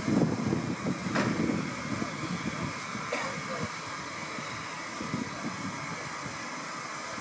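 Steam hissing steadily from a Great Western saddle tank steam locomotive, with a sharp metallic click about a second in and a fainter one about three seconds in.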